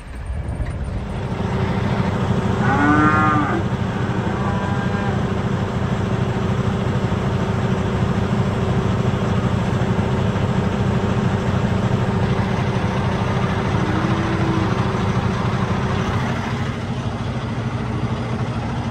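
Cattle mooing: a loud moo about three seconds in, a shorter one just after, and a fainter one about fourteen seconds in. A steady low engine hum runs underneath.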